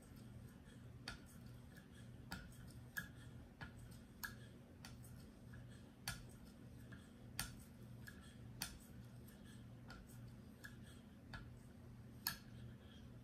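Light, sharp clicks roughly every half second to a second, a few louder than the rest: stone strokes on a KME guided knife sharpener working a paring knife's edge with the 3-micron (6,000 grit) stone. A faint steady low hum lies underneath.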